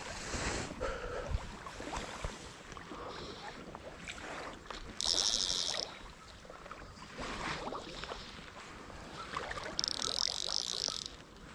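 A click-and-pawl fly reel buzzing twice as line is pulled off it, each run about a second long, the second near the end; faint rustling between.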